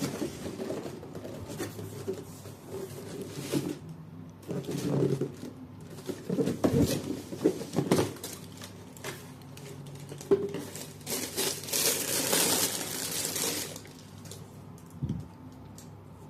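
A sneaker box and its packing paper being handled during an unboxing: scattered knocks and rustles, with a longer stretch of paper crinkling about two-thirds of the way through.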